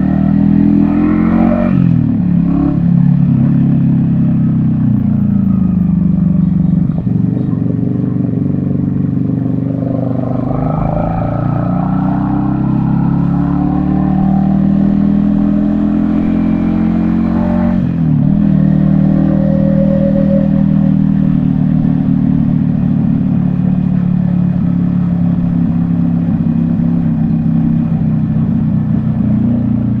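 Yamaha XSR155's single-cylinder engine running on the move, heard from the rider's helmet. The engine note dips and climbs again three times in the first twenty seconds, then holds steady.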